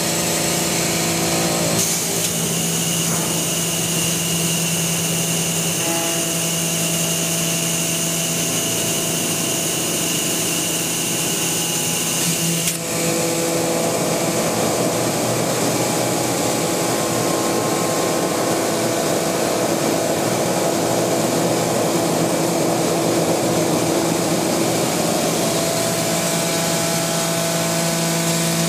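Milling machine spindle running and cutting a thin sheet workpiece: a steady, loud machining noise with a few held whining tones. About 13 seconds in, the noise dips for a moment and the whine changes pitch.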